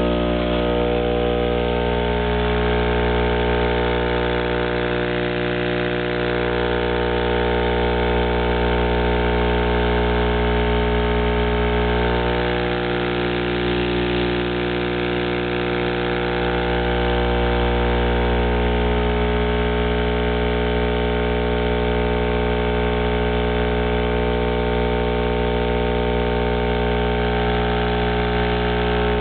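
12-inch RD Audio Heavyweight V.2 subwoofer wired straight to mains power from a wall socket, its cone driven by line current into a loud, steady, buzzy hum. This is the driver being overdriven in a test to destroy it.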